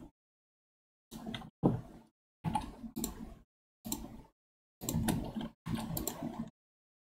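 Computer mouse and keyboard clicks with desk handling noise, heard in six short bursts through a gated desk microphone that drops to dead silence between them.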